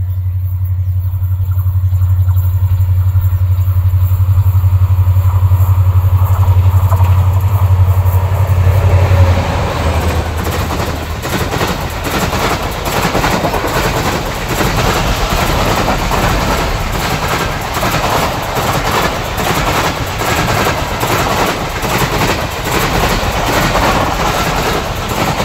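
Pakistan Railways SGMU-30 diesel locomotive hauling a passenger express through the station at speed. A loud, low engine drone comes first and cuts off suddenly about nine seconds in as the locomotive passes. The coaches then rush by with a dense wheel clatter.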